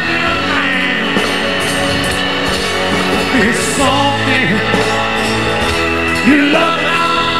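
Live rock band playing: strummed acoustic and electric guitars, bass and drums, with a man singing.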